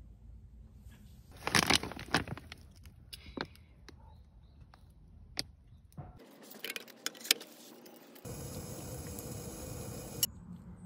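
Clinks and rattles of camping gear being handled and rummaged through in a bag, then a steady hiss for about two seconds near the end from a small gas canister stove burning under a kettle.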